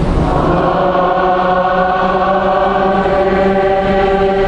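Liturgical chant sung in long held notes, moving to a new note just after the start and then held steady.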